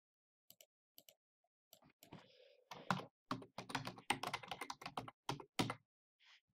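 Typing on a computer keyboard: a quick run of keystrokes, starting about two and a half seconds in and lasting about three seconds, after a few faint scattered clicks.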